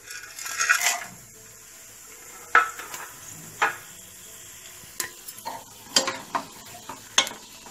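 Whole garam masala spices tipped into hot oil in a pressure cooker, then a steel ladle stirring them, clinking sharply against the cooker's sides several times over a light sizzle.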